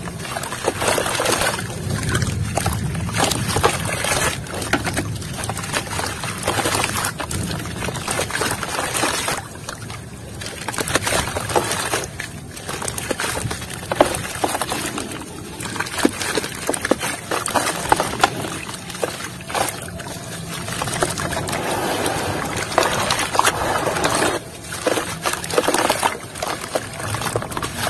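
Dry block of red soil crumbled by hand into a basin of water: a steady crunchy crumbling, with crackles and splashing and sloshing as lumps drop into the water. It rises and falls in loudness, with short lulls between handfuls.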